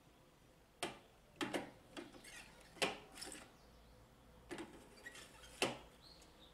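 About seven separate hard clicks and knocks, spaced irregularly, from parts of the Bosch MFW3640A meat mincer being handled and fitted together, with quiet between them.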